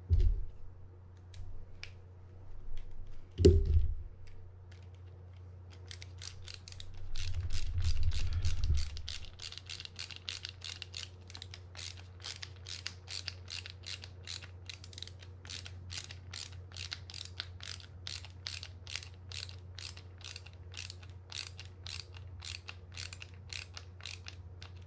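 Ratcheting screwdriver clicking steadily, about two to three clicks a second, as it drives a small screw into a spinning reel's body. The clicking starts about six seconds in, after a few handling knocks.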